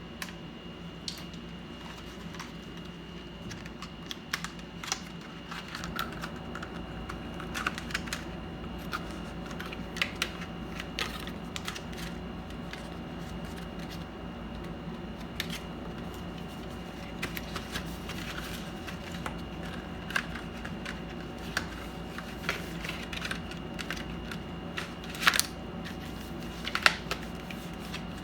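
Irregular light clicks and taps of small parts and tools being handled during an iMac hard-drive and RAM upgrade, with a sharper pair of clicks about 25 seconds in. A steady low hum with a faint high tone runs underneath.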